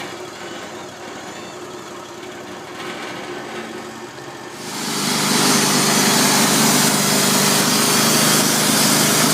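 Wood-Mizer LT35 portable band sawmill running steadily at low speed, then about five seconds in it jumps to a much louder, hissier sound with a strong engine note as it speeds up for a cut.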